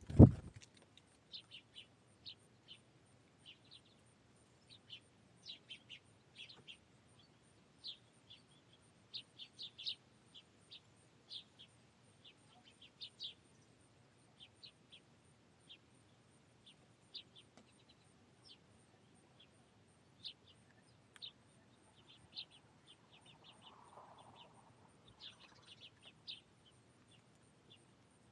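Finches chirping: many short, high chirps in irregular bursts, with a low thump just after the start.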